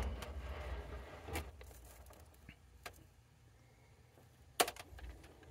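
Handling noise as an opened oscilloscope is turned around on a workbench: a few scattered knocks and clicks with a low rumble, the loudest click near the end.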